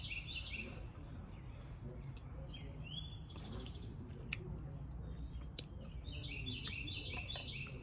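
Songbirds singing: a phrase of quick, high, repeated chirps near the start and again near the end, with a short buzzy trill around the middle. Beneath them runs a steady low outdoor rumble, with a few faint clicks.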